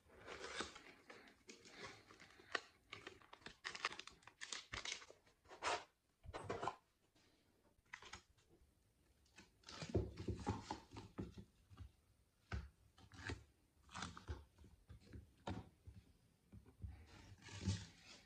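Cardboard packaging being handled: irregular scraping, rustling and tearing of cardboard as the box of a Deli magazine holder is opened and cardboard sheets are pulled from between its plastic panels. A few soft knocks of plastic against the desk, the strongest about ten seconds in and near the end.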